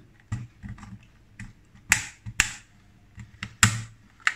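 Plastic snap-fit clips of a portable hard drive's casing cracking apart as it is pried open: a series of sharp snaps and clicks, the loudest about two and three and a half seconds in.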